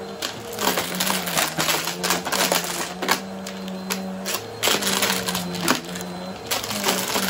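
Bissell bagless upright vacuum running with a steady hum while it sucks up small hard bits of debris, which clatter and tick rapidly as they rattle up through the floor head and tube. The motor's pitch dips briefly about four seconds in.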